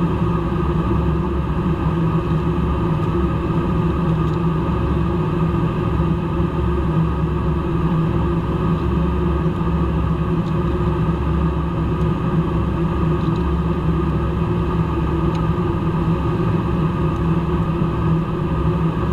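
Steady in-flight drone of a KC-135 tanker heard from inside the boom operator's pod: engine noise and rushing air with a constant low rumble and several steady hums, unchanging throughout.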